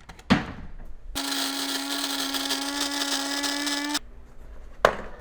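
A small electric motor, like a kitchen blender or grinder, runs at a steady pitch for about three seconds. It starts and stops abruptly, with a sharp click before it and two clicks after.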